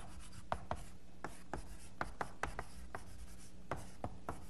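Chalk writing on a blackboard: a quick, uneven series of sharp taps and short scrapes as the words are chalked out, over a faint steady low hum.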